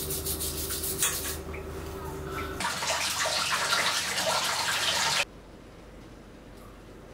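Toothbrush scrubbing teeth in quick strokes, then a shower running in a steady spray from about two and a half seconds in, which cuts off abruptly about five seconds in, leaving low room tone.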